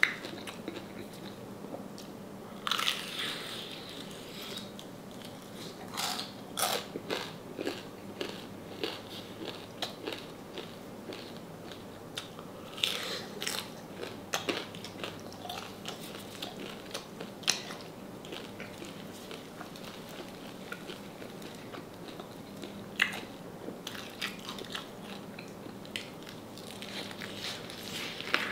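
Crunching bites and chewing on crispy deep-fried salted pork knuckle. Sharp crackly crunches come at irregular intervals, with quieter chewing between them.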